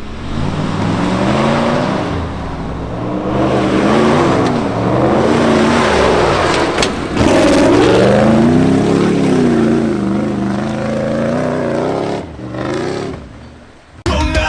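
Jeep Grand Cherokee ZJ's 5.2-litre Magnum V8 revving and accelerating, its pitch rising and falling several times, then fading away near the end as loud rock music cuts in.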